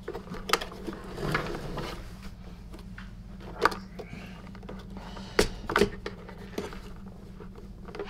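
Handling sounds from a SEBO C3.1 canister vacuum's plastic housing as its wiring is pressed into the moulded cable-routing channels: a handful of sharp plastic clicks and taps over a light rustle.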